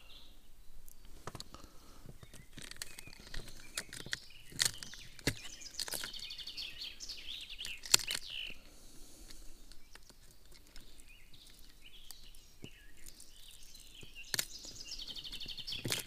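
A songbird singing two rapid trilled phrases, about six seconds in and again near the end, over scattered sharp clicks and small knocks of fishing tackle being handled while a wobbler is attached to the line.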